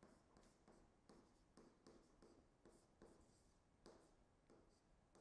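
Faint stylus strokes on a tablet screen during handwriting: irregular light taps and short scratches, a few each second.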